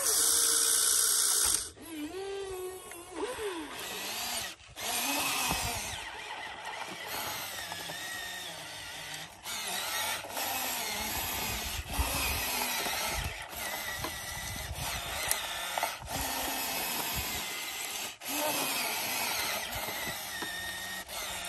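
Huina RC excavator's small electric motors and plastic-and-metal gearboxes whining as the boom, arm, bucket and turret move, the pitch gliding up and down and cutting in and out as each control is worked. A louder hiss fills the first second or so.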